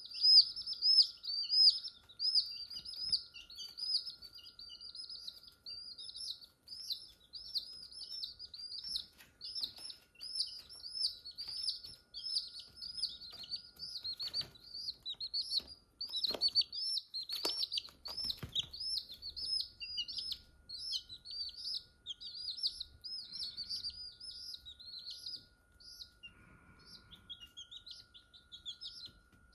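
Newborn chicks peeping continuously, rapid high-pitched cheeps several a second from more than one bird, loudest near the start. A few soft knocks around the middle, and a faint steady hum underneath.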